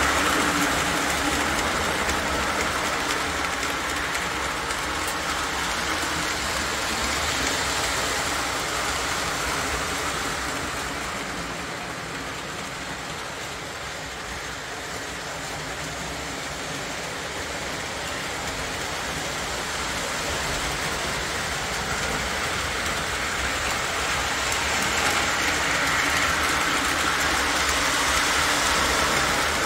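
Model train running on layout track, a steady rumbling clatter of wheels and motor. It grows fainter around the middle and louder again toward the end, as the train moves away and comes back round.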